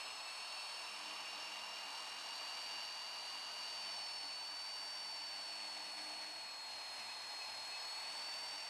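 Portable bandsaw running steadily as it cuts through the centering bushing of a driveshaft flange: a high, steady whine over a hiss.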